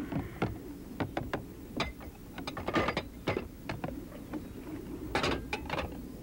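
Dishes and pans clinking and clattering as they are washed at a kitchen sink, in a string of irregular sharp knocks.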